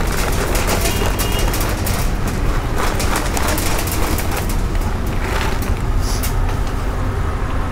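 Dry dog kibble poured from a packet, the pieces clattering and ticking as they scatter on a stainless-steel surface, over a steady low rumble of street traffic.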